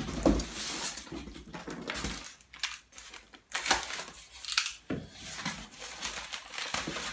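Unpacking sounds: a foam-packed servo motor is lifted out of a cardboard shipping box. It opens with a dull thump, then irregular scraping, rustling and knocking of styrofoam, cardboard and plastic strapping.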